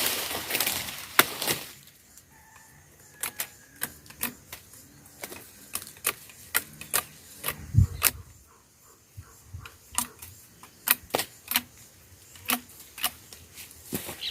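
A series of irregular sharp clicks and snaps, with a duller thump about eight seconds in.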